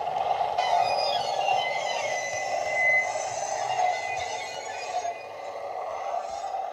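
Sound-decoder recording of a first-generation diesel multiple unit engine running under power, played through a pair of small megabass speakers in a Heljan Class 128 parcels unit model as it moves off along the track. A higher whine joins the engine sound about half a second in.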